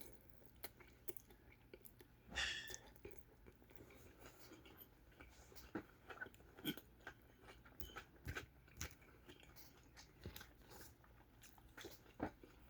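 A person chewing and biting food close to the microphone, quietly, with many small wet mouth clicks and one louder bite or crunch about two and a half seconds in.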